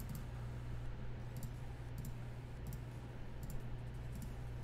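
Faint computer mouse clicks, about half a dozen spread over a few seconds, over a steady low electrical hum.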